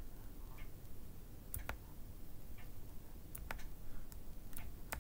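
A few sharp computer mouse clicks, some in quick pairs, spaced a second or two apart.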